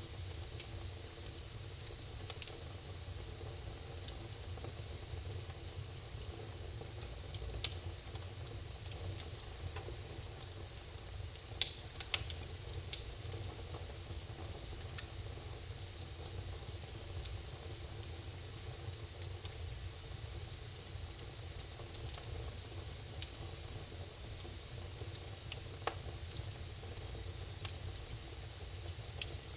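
Wood fire burning in a fireplace: a steady low rumble and hiss with scattered sharp crackles and pops, a small cluster of them about twelve seconds in.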